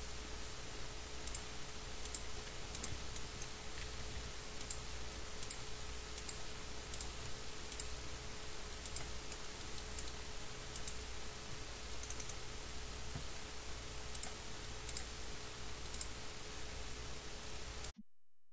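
Sparse, faint computer mouse clicks, spaced irregularly, over a steady recording hiss and low electrical hum; the sound drops out to silence briefly near the end.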